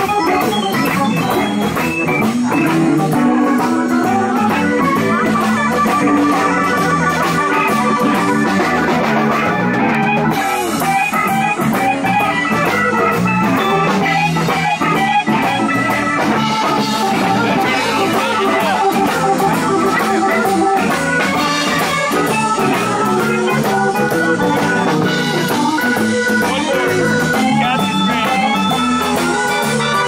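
A live blues band playing, with keyboards and guitar over bass and drums.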